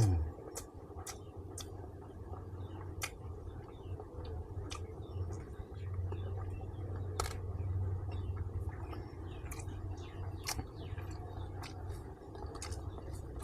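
A person chewing pork ribs, heard as irregular short clicks and smacks from the mouth, over a steady low hum.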